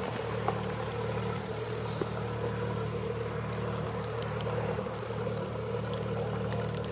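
Motor cruiser's engine running steadily at low speed, a constant low hum.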